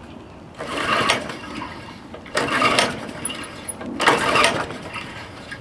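Honda HR214 lawnmower being pull-started: three hard pulls of the recoil starter a second or so apart, each turning the engine over briefly without it catching and running.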